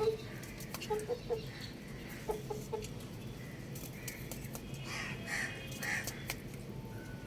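Young rooster clucking in short low notes, a few at a time, with scattered clicks; higher bird calls come in about five seconds in.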